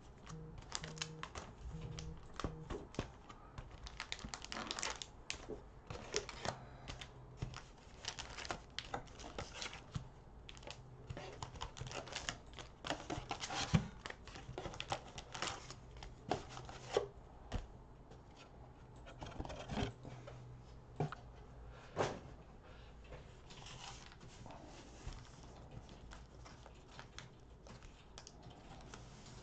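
Plastic cello-wrapped Panini Prizm card packs crinkling and rustling as they are lifted out of their cardboard display box and stacked by hand, with irregular light clicks and a few sharper knocks.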